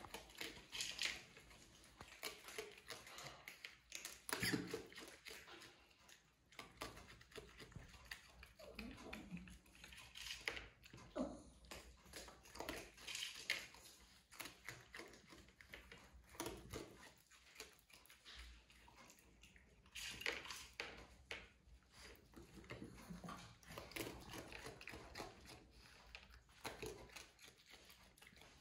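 Raccoon eating from a small plastic bowl: irregular wet chewing and crunching with small clicks and taps.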